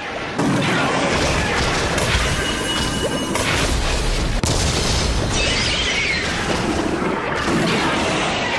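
Film battle sound effects: a run of explosions and crashing impacts over a heavy low rumble, with sharp new blasts about half a second in and again around three to four seconds in, and music faintly underneath.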